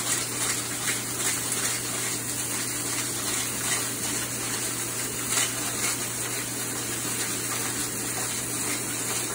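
Steady hiss of steaks sizzling in a very hot cast iron pan.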